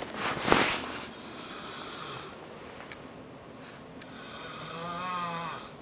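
A sleeping person snoring: a loud, rough breath near the start, then a long buzzing snore with a wavering pitch from about four seconds in until shortly before the end.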